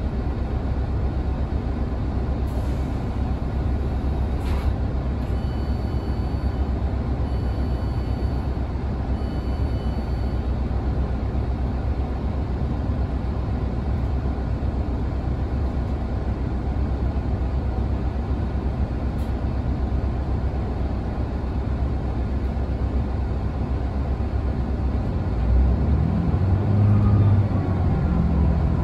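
Class 166 'Turbo' diesel multiple unit's 14-litre six-cylinder turbo-diesel engines idling steadily at a station stop, with three short electronic beeps about five to ten seconds in. Near the end the engine note rises and gets louder as the train starts to pull away.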